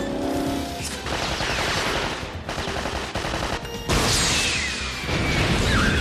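Film action soundtrack: rapid bursts of gunfire and car noise over music, with a sudden louder blast about four seconds in.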